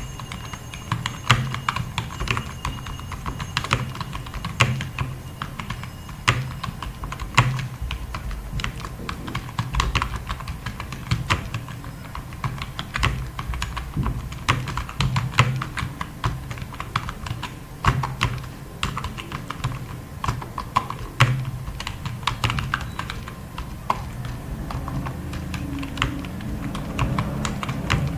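Fast typing on a computer keyboard: a rapid, irregular stream of key clicks with occasional louder strokes.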